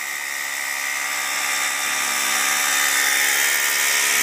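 Large corded hammer drill boring a long masonry bit into concrete, running steadily and growing gradually louder.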